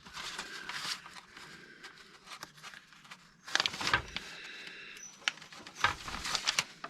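Paper forms rustling and crackling as they are handled and shuffled, in irregular bursts, loudest about halfway through and again near the end.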